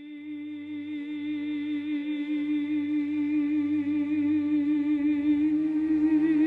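Background music: one long held note with a slight vibrato, swelling steadily louder.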